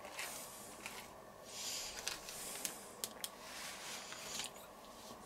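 Faint rustling and a few small clicks from nitrile-gloved hands smoothing a woven bacon mat and lifting the edge of the sheet it lies on.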